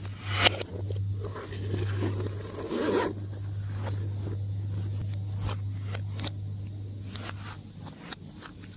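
Slime being worked by hand: a dense crackling, scraping stretch for the first three seconds, then scattered small clicks and pops, over a steady low hum.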